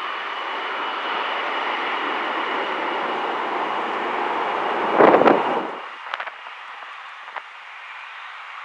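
Embraer ERJ-145's twin rear-mounted Rolls-Royce AE 3007 turbofans running with a steady high whine over a jet rush, growing louder. About five seconds in comes a brief, very loud rushing blast, after which the noise drops away abruptly to a faint rumble with a few clicks.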